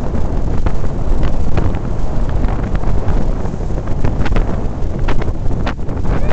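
Heavy wind buffeting the microphone aboard a small open boat running fast over choppy water, with the low rush of the boat and wake underneath. Sharp knocks come now and then, more of them in the second half, as the hull slaps and bounces on the waves.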